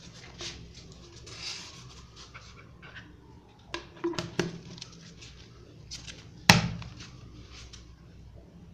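Handling noises from a plastic Tupperware tumbler: light rustling of its cover and strap, a few small plastic clicks and knocks, and one sharp, loud plastic knock about two-thirds of the way through as the blue lid is handled.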